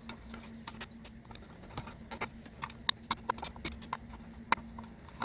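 Irregular light clicks and taps of hand work on a C3 Corvette taillight, the screwdriver and screws clicking against the plastic lens as the screws spin in their worn anchors. A faint steady hum runs underneath.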